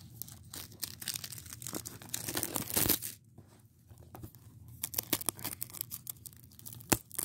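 Plastic shrink wrap being torn and peeled off a Blu-ray case, crinkling as it comes away, loudest about two to three seconds in. A sharp click near the end.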